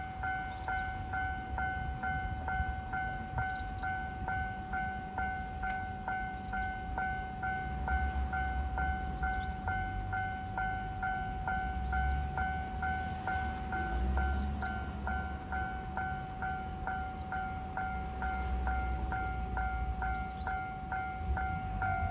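Japanese railway level-crossing warning bell ringing its electronic 'kan-kan' ding, an even two-tone strike at about two a second. Beneath it a low train rumble swells and fades, growing louder near the end.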